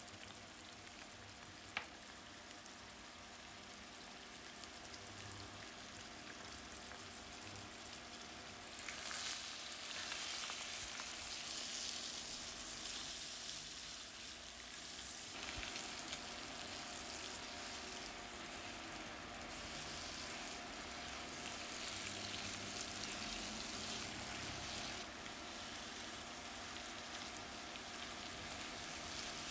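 Eggs and sliced onion frying in butter and oil in a pan, a steady sizzle that grows louder about nine seconds in as they are stirred with a silicone spatula.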